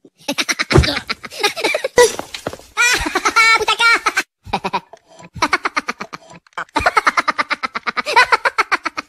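Speech only: a girl and then a woman talking.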